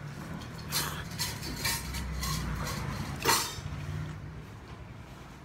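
Eating at a table: chopsticks tapping and scraping against a bowl of cold noodles, with noodles slurped and chewed. There are several short strokes, the loudest a little past the middle.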